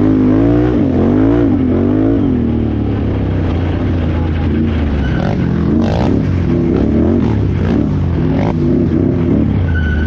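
Can-Am Renegade XXC 1000R ATV's V-twin engine revving up and down over and over as the throttle is worked through off-road race terrain. There are a few short knocks and clatters about six seconds in and near the end.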